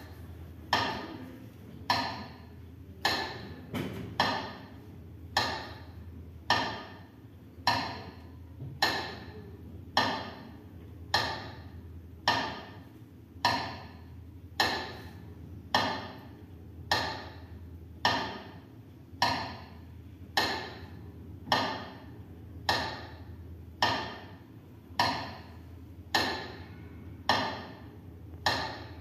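Metronome ticking slowly and evenly, a little slower than one beat a second, each beat ringing briefly; played over a hall's loudspeakers, it is the traditional beat that marks a minute of silence.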